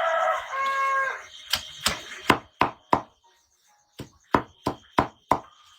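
Chopping pig feed with a knife: two runs of five sharp chops, about three a second, with a short pause between the runs.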